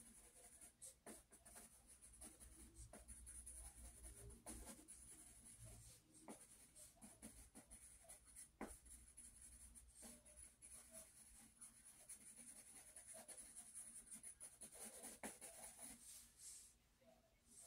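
Pencil scratching and shading on sketchbook paper: faint, many short repeated strokes.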